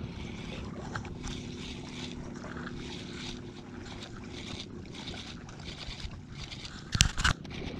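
Steady low hum of a small boat at sea with wind and water noise, and a sharp click about seven seconds in, followed quickly by a second, fainter one.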